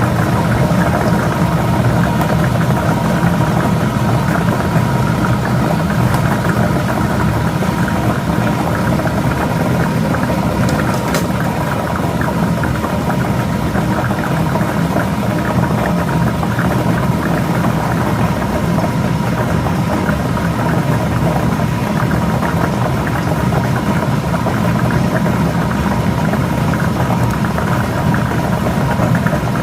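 Motorised lottery ball machine running steadily, its motor giving an even hum with no pauses.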